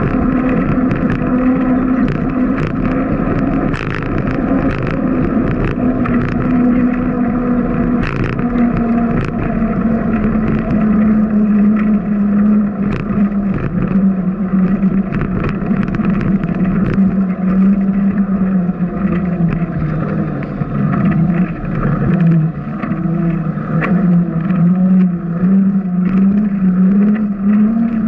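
Riding noise of a bicycle picked up by a camera mounted on the bike: a steady hum that sinks in pitch through the middle and rises again near the end, with scattered knocks and rattles from bumps in the path.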